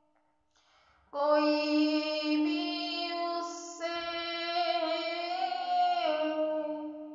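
A woman singing a slow melodic phrase of long held notes. It starts suddenly about a second in and fades away near the end.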